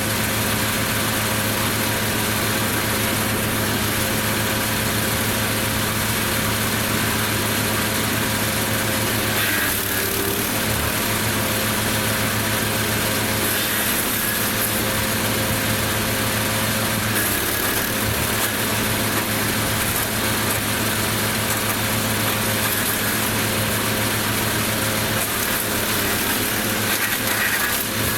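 Lumag Rambo HC15 petrol wood chipper running steadily under load, a constant engine hum beneath a harsh rushing noise of laurel and Leylandii conifer branches being chipped. The noise briefly swells a few times.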